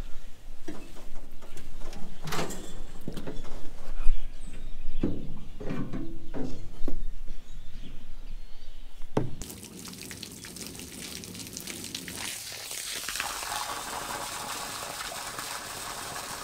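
Metal knocks and clanks for the first nine seconds or so, then water from a hose running into a grain trailer of rice seed as a steady hiss that grows stronger toward the end. The seed is being flooded to soak it.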